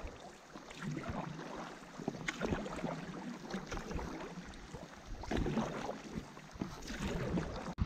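Paddle strokes in the water beside a tandem inflatable stand-up paddleboard: two paddlers' blades dipping and pulling, a splashy swish about once a second.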